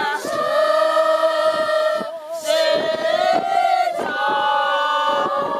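A crowd of young women singing together unaccompanied, slow and in unison, holding long notes with a short breath break about two seconds in.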